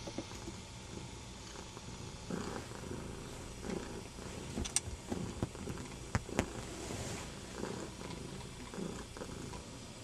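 Domestic cat purring steadily close up, with a few sharp clicks near the middle.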